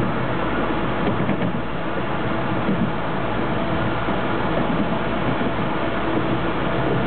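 Toronto subway train running along the track, a steady rumble of wheels on rails and traction motors with a faint steady hum, heard from inside the car.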